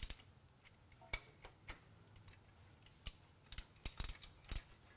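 Hand ratchet clicking in short, irregular runs of sharp clicks as the ARP connecting-rod bolts on a BMW S54 engine are run down snug.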